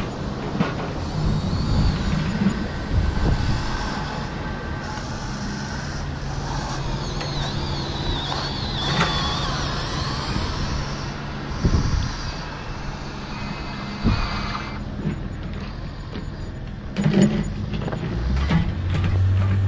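Huina radio-controlled excavator working a dirt pile, its electric motors whirring steadily as the boom, arm and bucket move, with a few knocks of dirt and clods.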